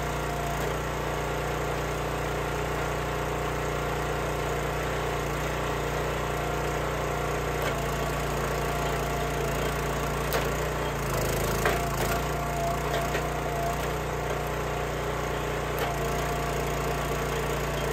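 Small gas engine of a hydraulic log splitter running steadily, with a higher whine coming and going as the ram works. A few sharp cracks of wood splitting, the loudest a little under twelve seconds in.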